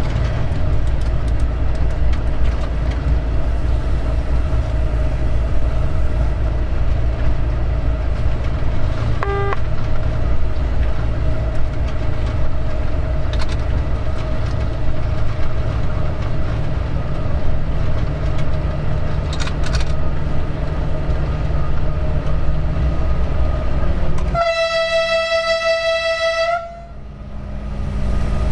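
Diesel locomotive, a Vossloh G 1206, running along the line with a steady low rumble. About 24 seconds in, its horn sounds one single-pitched blast lasting about two seconds.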